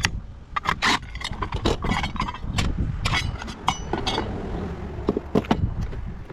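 Parts of a dismantled coffee maker being handled and sorted into scrap piles: scraping, with many short clicks, clinks and knocks of metal and plastic pieces, over a steady low rumble.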